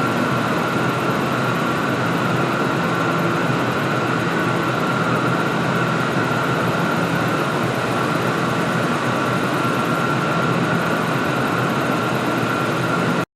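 Steady running noise of a vehicle or machine with a constant whine over it. It cuts off abruptly near the end.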